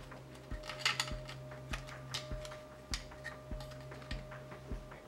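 Small plastic clicks and rustling of flat ribbon cables and their connectors being handled and pushed onto header pins. Under them runs a steady low hum with a soft low thump repeating about every 0.6 s.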